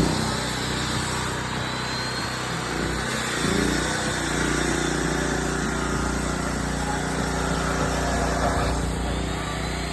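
A small engine or motor running steadily, its hum growing a little stronger about three and a half seconds in.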